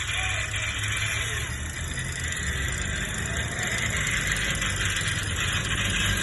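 Off-road vehicle's engine running steadily with a low rumble.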